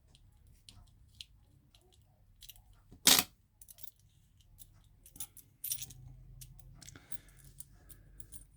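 Small metal parts of a rim cylinder lock clicking and clinking as the cylinder's back is taken apart by hand, with one sharp clack about three seconds in and a few more clicks near six seconds.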